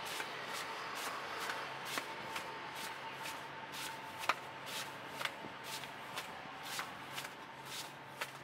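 Floured pizza dough being stretched by hand, slapped and flipped from palm to palm with a soft slap about twice a second. A faint steady hum runs underneath.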